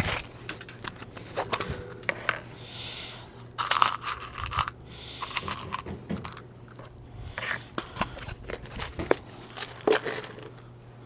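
Irregular clicks, scrapes and crinkling from bicycle parts and plastic being handled during repair work.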